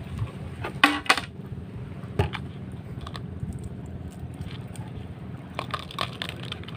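A few sharp metallic clinks and knocks from handling gear, loudest and doubled about a second in, one more about two seconds in and a quick cluster near the end, over a steady low background rumble.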